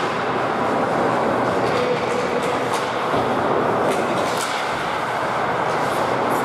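Ice hockey game noise in an arena: a steady hubbub with scattered short, sharp scrapes and clicks.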